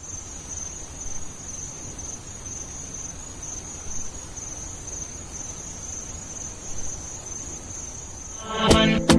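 Crickets chirring: a steady, slightly pulsing high trill over a low background rumble. Near the end, music begins with sharp percussive hits and pitched synth chords.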